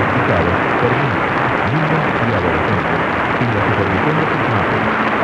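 AM radio receiver tuned to a distant station on 1490 kHz, giving a loud steady hiss of static with a weak voice faintly audible beneath it. The signal is long-distance skywave reception over about 1,430 km.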